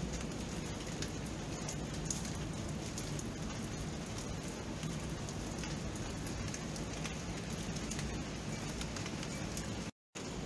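Steady rain: a continuous hiss with many individual drops pattering. The sound drops out to dead silence for a split second near the end.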